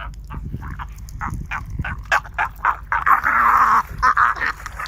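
Birds calling: a quick run of short calls, about three a second, with a longer harsh call about three seconds in, over a steady low rumble.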